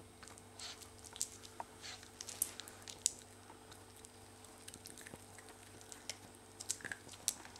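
A six-week-old cocker spaniel cross puppy playing, making faint, irregular small clicks, scratches and chewing noises.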